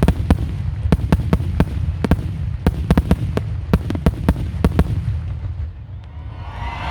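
Aerial fireworks shells bursting in rapid succession: many sharp bangs a second over a low rumbling echo. They die away about five and a half seconds in.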